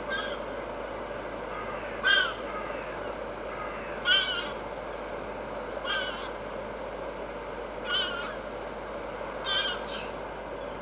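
A series of short, sharp animal calls, six in all, repeated about every two seconds over a steady background noise.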